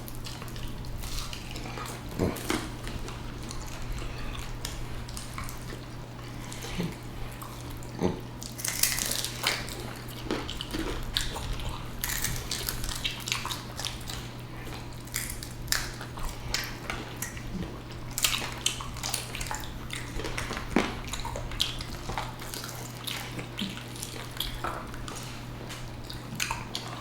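Close-miked eating sounds: bites and chewing of crispy air-fried chicken wings, with scattered sharp clicks and clinks of dishes and cutlery, over a steady low hum.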